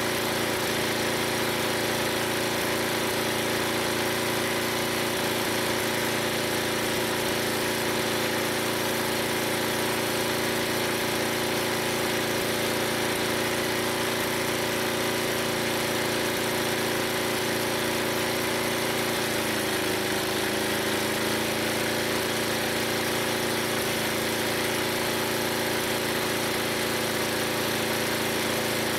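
Old 11 hp Briggs & Stratton gas engine running steadily as it drives an antique log splitter by belt. Its pitch drops slightly about two-thirds of the way through and stays a little lower.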